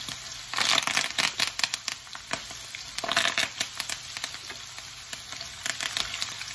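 Curry leaves hitting hot oil in a wok with sliced onion and whole spices: a steady sizzle with loud crackling and spattering about half a second in and again around three seconds in, then a more even sizzle as a wooden spatula stirs near the end.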